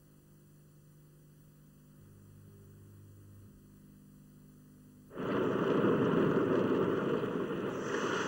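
A faint steady hum, close to silence, for about five seconds. Then a loud, steady rushing noise starts suddenly.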